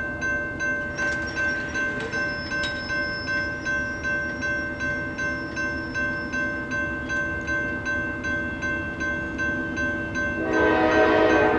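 Railroad grade-crossing warning bell ringing in an even rhythm, about two strokes a second, as the crossing activates. Near the end an approaching train's horn starts to blow and becomes the loudest sound.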